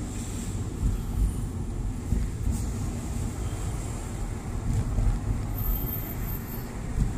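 Car driving slowly, heard from inside the cabin: a steady low rumble of engine and tyres, with a few soft thumps.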